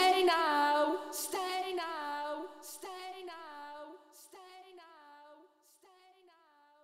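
A woman's voice singing the closing phrase of a pop ballad, the same sung shape repeating like an echo and fading away to near silence near the end.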